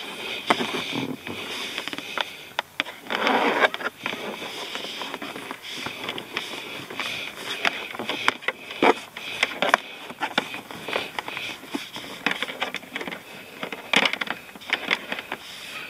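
Irregular clicks, scrapes and rustling of a thin power cable being pushed by fingers into the gap between the windshield and the plastic A-pillar trim, with a denser stretch of rubbing about three seconds in.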